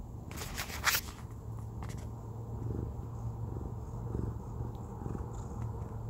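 Domestic cat purring close to the microphone, a steady low rumble. Two brief rustling noises about half a second to a second in.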